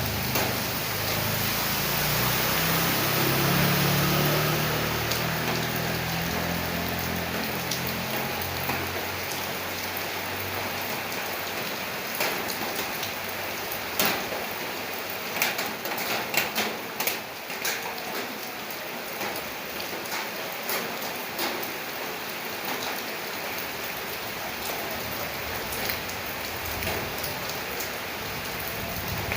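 Steady rain falling, with a low rumble in the first few seconds and a run of sharp, separate drops or drips hitting a surface about halfway through.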